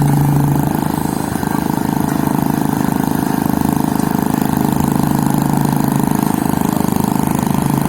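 An engine running steadily at an even speed, its level dipping slightly about a second in.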